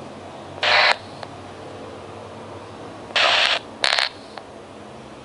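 Handheld airband scanner receivers, an ICOM IC-R5 and a Yaesu VR-120, giving three short bursts of static hiss as their squelch opens briefly while scanning the VHF air band. A faint steady hum and hiss lies between the bursts.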